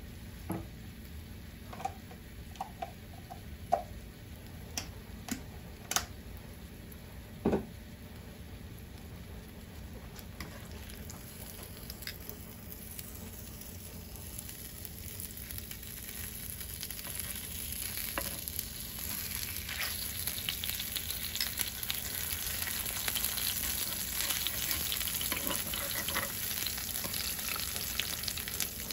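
Corn tortillas frying in hot oil in a pan, a steady sizzle that grows louder from about a third of the way in. A few sharp knocks of a utensil against the pan come in the first several seconds.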